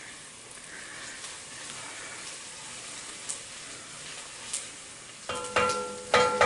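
Steady sizzle of onions frying in butter in a pot, with a few faint knife taps on a plastic cutting board as beef is cut into cubes. Near the end a louder, high whining sound starts, held in short pieces on several steady pitches.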